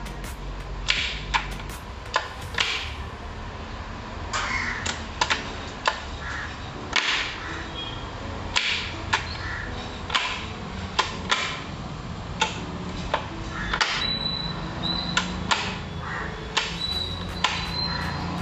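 Sharp metallic clinks and knocks at irregular intervals, typical of tools and parts being handled during gearbox work, with crows cawing several times in the background.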